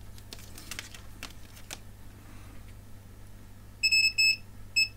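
Light clicks and rustling of multimeter test leads being handled, then the multimeter's continuity beeper sounds three short, high beeps in quick succession as the two probe tips touch.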